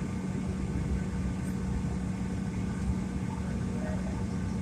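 Airliner cabin noise after landing: a steady hum with a constant low tone over an even rush of air and engine noise.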